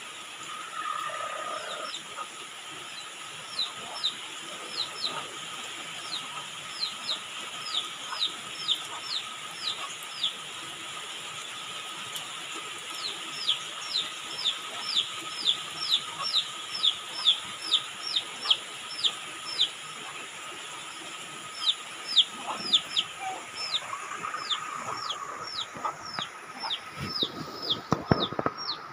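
Steady rainfall with a bird giving long runs of short, high, falling chirps, about two or three a second, pausing briefly in the middle. A short low rumble comes near the end.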